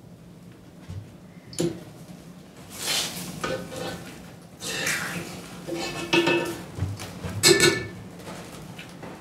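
A metal spoon clinking and scraping against metal pots and bowls, in a handful of separate clatters, some leaving a short metallic ring.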